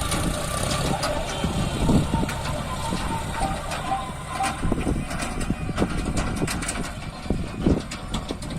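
John Deere 5050D tractor's three-cylinder diesel engine running steadily under load, with irregular knocks and rattles over its rumble.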